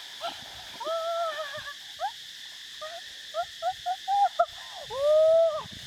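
Excited wordless cries from a person's voice: short rising-and-falling 'oh' sounds in quick runs, with two longer held cries, the loudest near the end.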